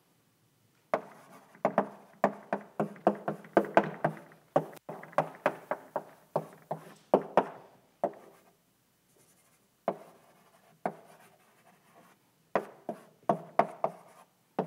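Chalk writing on a blackboard: a quick run of taps and scratchy strokes for several seconds, a pause of about two seconds, then a few more strokes near the end.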